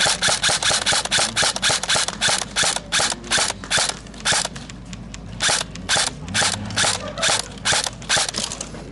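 Airsoft electric rifles (AEGs) firing close by: a fast, irregular string of sharp mechanical clacks, about five shots a second, with a brief lull just before the middle before firing resumes.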